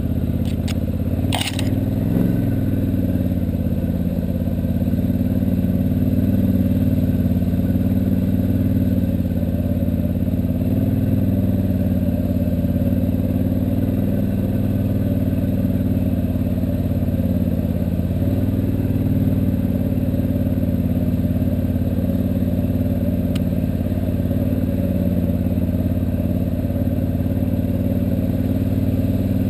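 ATV engine running steadily while riding a dirt trail, with one sharp clack about a second and a half in.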